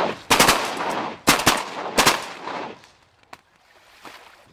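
Volley of shotgun blasts from several duck hunters firing together, about five shots packed into the first two seconds, each followed by a short fading echo.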